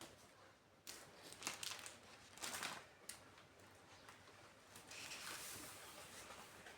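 Soft rustling and handling of packaging, crinkling with a few light clicks in the first three seconds, then a fainter steady rustle.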